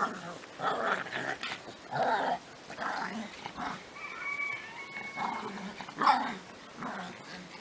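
Two dogs growling and yipping in short bursts during rough play, the loudest burst about six seconds in.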